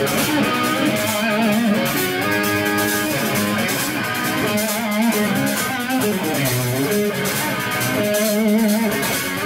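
A hard rock band playing live, led by electric guitar holding sustained notes that waver with vibrato over bass and cymbals.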